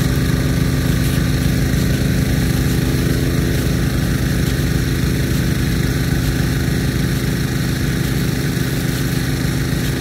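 Steady drone of the irrigation pumps running under load, feeding a Nelson P150 big gun sprinkler, with a continuous high hiss over it.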